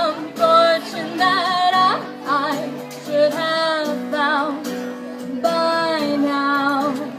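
A song: a singing voice holds long notes with a wide vibrato, without clear words, over steady instrumental accompaniment.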